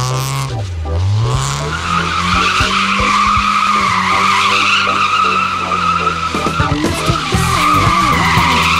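Car tyres squealing steadily as a Toyota hatchback is slid around a cone, with the engine revving underneath. The squeal sets in about a second and a half in and holds.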